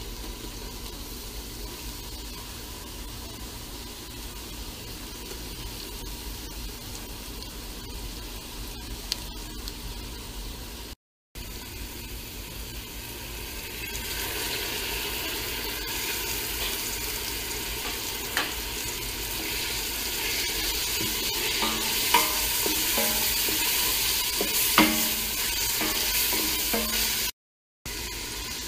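Chopped onion and grated carrot sizzling in oil in a stainless steel pot while a wooden spoon stirs and scrapes, with a few sharp knocks of the spoon against the pot. The sizzling grows louder about halfway through as chopped tomatoes go into the hot oil.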